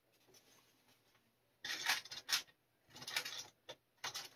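Model ship kit parts being handled on a workbench: a few short bouts of rubbing and scraping in the second half, from the flag sheet and the spools of rigging thread beside the parts tray.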